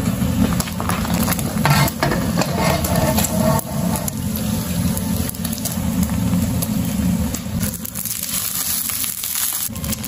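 An egg frying in hot oil in a wok, sizzling and crackling over a steady low hum. Near the end, liquid goes into the hot wok.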